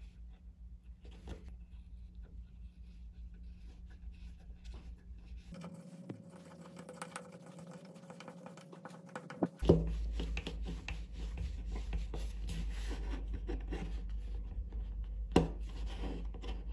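Metal scratch awl scraping and picking at the edge of a plastic surfboard fin box: light, irregular scratching over a low steady hum, with a sharp click about ten seconds in and another near the end.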